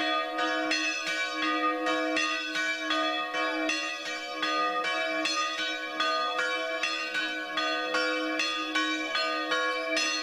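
Church bells rung rapidly in a steady peal, struck about four times a second, with the deep ringing of the larger bells held under the strikes.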